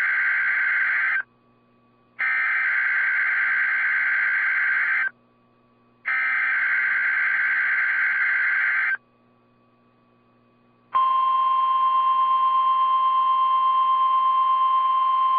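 NOAA Weather Radio emergency alert signal for a Required Weekly Test. Three identical bursts of SAME digital header data, a buzzing modem-like screech about three seconds long each, separated by one-second gaps. About eleven seconds in, a loud, steady, single-pitched warning alarm tone begins and holds.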